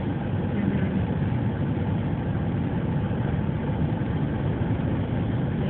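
Steady low road and engine noise heard inside the cabin of a moving car.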